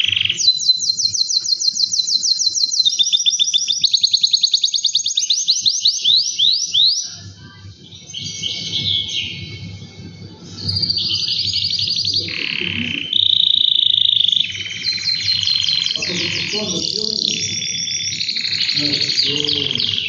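Male domestic canary singing: fast trills of many notes a second, one phrase after another at changing pitch, with a short pause about halfway through before the song resumes.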